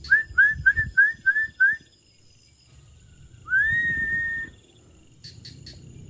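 A person whistling close by: six short notes that each flick upward, in quick succession, then about two seconds later one longer whistle that slides up and holds steady for about a second.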